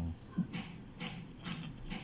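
A few faint, scattered clicks and light knocks from bicycle parts and tools being handled at the workbench.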